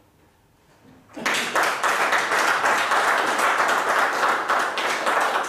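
Audience applauding in a hall, many hands clapping densely. It starts suddenly about a second in, after a brief hush.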